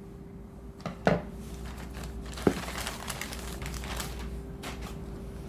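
Parcel packaging crinkling and rustling as it is handled and opened, with two sharp knocks about one and two and a half seconds in. A faint steady hum sits underneath.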